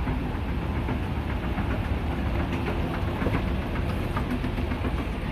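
Escalator running, a steady low mechanical rumble.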